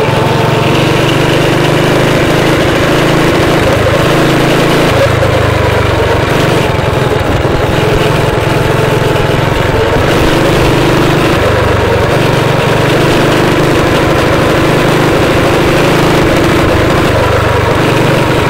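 Small engine of a motorized bicycle running under way, with its note shifting up and down several times.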